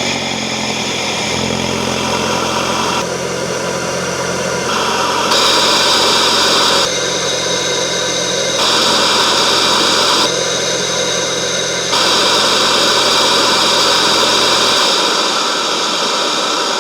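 Mk8 VW GTI's turbocharged 2.0-litre four-cylinder running with an 034 Motorsport S34 aftermarket intake fitted. A steady engine hum sits under a loud intake hiss that jumps in level in sudden steps. The hum drops out about fifteen seconds in while the hiss carries on.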